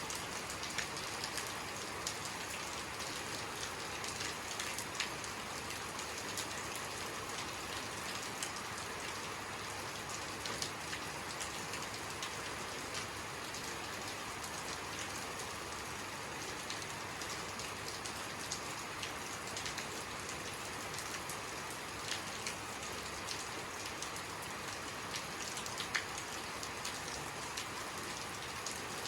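Steady rainfall: an even hiss of rain with many individual drops ticking through it.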